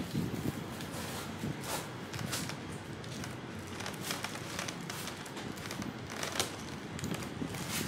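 Thin clear plastic clamshell container crinkling and crackling, with foam net sleeves rustling, as durian pieces are pressed into it by hand; the crackles come irregularly.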